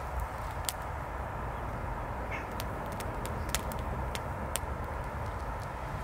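Newly lit wood campfire crackling, with irregular sharp pops from the burning kindling over a steady low rumble.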